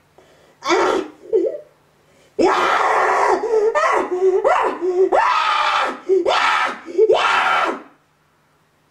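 A woman's loud, wordless vocal cries. There is a short cry about a second in, then a run of about six strained cries, each rising in pitch and breaking off. They stop abruptly about eight seconds in.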